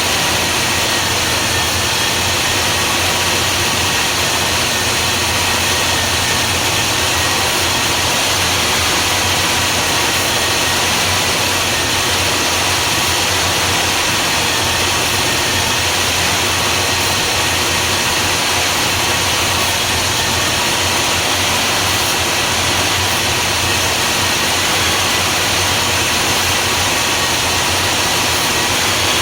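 Chrysler 360 V8 engine running at a steady idle, an even, unchanging sound throughout.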